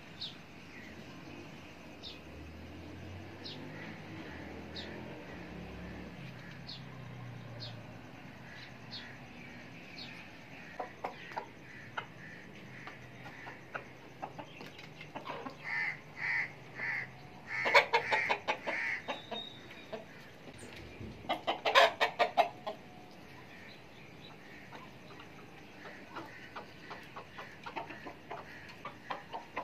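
Domestic chickens clucking as they feed, with short repeated calls and two louder bursts of rapid, sharp sounds near the middle.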